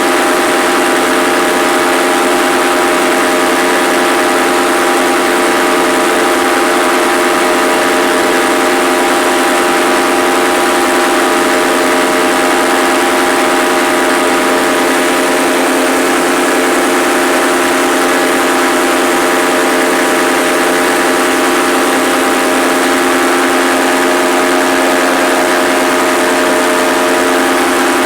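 Paramotor engine and propeller running at steady power, an even drone that holds the same pitch throughout.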